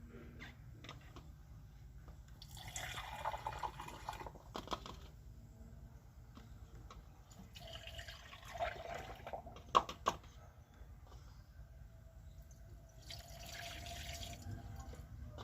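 Three bursts of hissing, splashy liquid spray of carbon cleaner, about two seconds each, over a low steady hum, with a few sharp clicks partway through.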